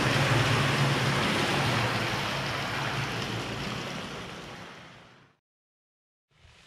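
Steady rush of flowing water that fades away over a couple of seconds into dead silence. A fainter rushing noise comes back just before the end.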